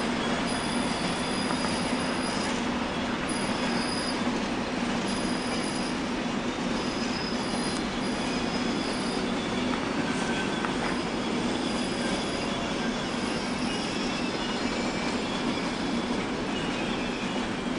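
Passenger train rolling on station tracks: a steady rumble with short, high wheel squeals that come and go, about once a second at first and at lower pitches later.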